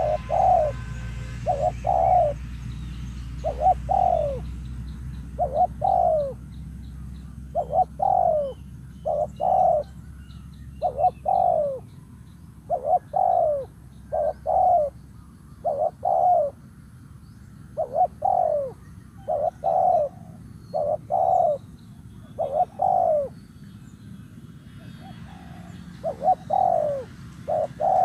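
Spotted dove cooing over and over in short falling notes grouped in twos and threes, a phrase about every two seconds. It is the call used to stir up a decoy dove. A low rumble runs underneath for about the first twelve seconds.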